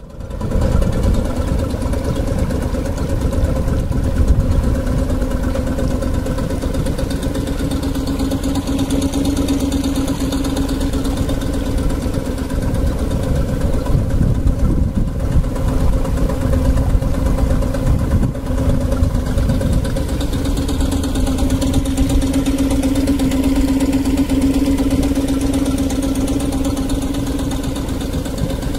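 Small motorboat's engine running at a steady speed: a constant droning hum over a low rumble, swelling slightly at times.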